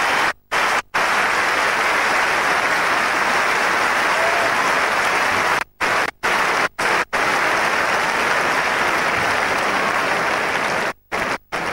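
Tennis crowd applauding steadily at the end of a match. The sound cuts out completely several times for a fraction of a second: twice near the start, four times in the middle and twice near the end.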